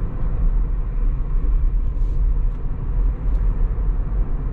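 Steady low road and tyre rumble inside the cabin of a Tesla Model 3 electric car driving along a country road, with no engine note.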